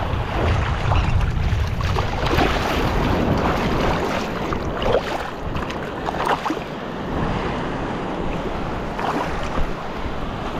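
Shallow surf washing and sloshing around a tarpon held by the tail in the wash, with a few brief splashes. Wind buffets the microphone throughout.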